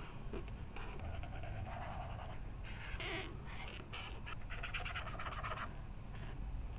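Felt-tip marker nibs scratching across dot-grid journal paper as strokes are coloured in, coming in several short bursts of scratchy strokes with brief pauses between.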